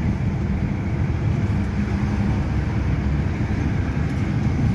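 Car engine and tyre noise heard from inside the cabin while driving at a steady speed: an even low rumble.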